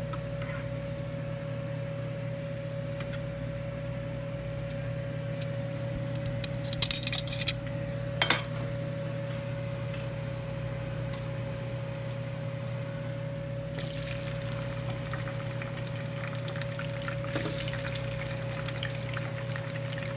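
Hot oil sizzling in a frying pan, with metal tongs clinking sharply several times about a third of the way in. The sizzling turns denser and more crackly about two-thirds through. A steady low hum runs underneath.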